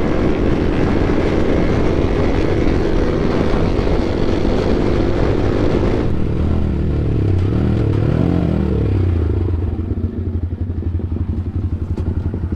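Motorcycle riding with heavy road and wind noise, which drops away suddenly about halfway. Engine revs then rise and fall a few times before the engine settles to a steady pulsing idle.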